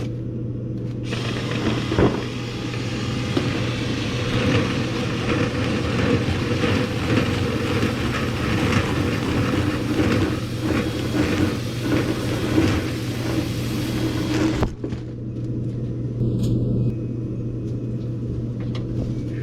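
A motor running with a steady low hum, overlaid with continuous rattling and scraping that stops abruptly about 15 seconds in, leaving the hum on its own.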